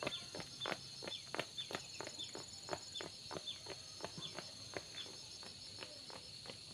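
Running footsteps on a concrete lane, about three a second, growing fainter as the runner moves away. Insects trill steadily in the background.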